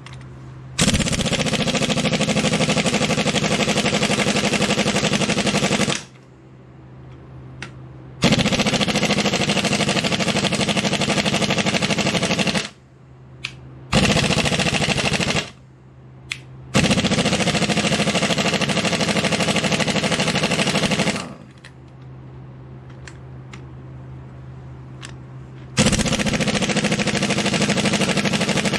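Impact wrench hammering on the flywheel bolts of a Ford 545A backhoe engine, in five runs of a few seconds each with short pauses between. The bolts are stubborn and tight.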